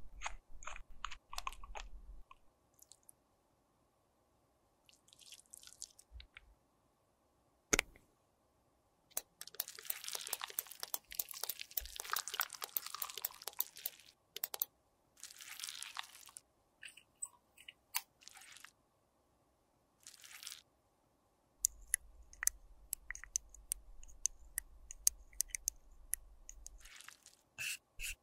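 Small plastic lip-tint and liquid-blush tubes handled and their caps twisted by fingers in rubber finger cots: scattered sharp clicks and light scrapes, with a few seconds of dense crackling about ten seconds in.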